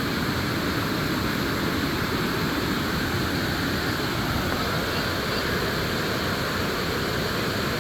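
Water pouring steadily over a small dam spillway, an even, unbroken rushing.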